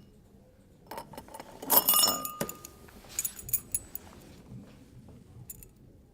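Small hard objects jingling and clinking in a cluster about a second in, one of them ringing briefly, then a few scattered lighter clinks.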